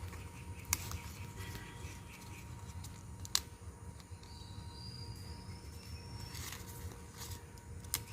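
Quiet steady background hum with a few faint clicks. A thin, high, faint tone rises slightly over about two seconds in the middle.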